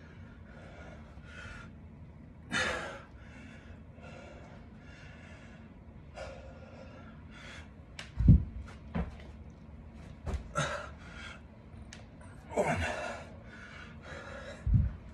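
Heavy breathing with hard exhales from a man doing dumbbell burpees with a curl and press. There are a few dull thuds on the carpeted floor from the reps, the loudest about eight seconds in.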